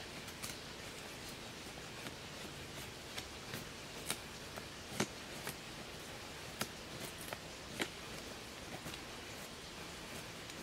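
Knife shaving a cedar billet into kindling: irregular light clicks and scrapes as the blade bites the wood, a few of them sharper than the rest.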